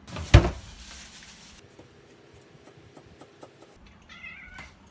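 A sudden loud knock about a third of a second in, followed by a few light clicks, then a short, wavering meow from a ginger cat near the end.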